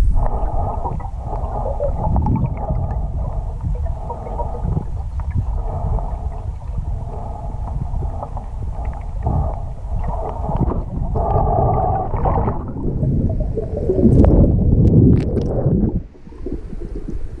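River water heard underwater: a steady low rumble with wavering gurgling. It swells about fourteen seconds in and drops sharply a couple of seconds later.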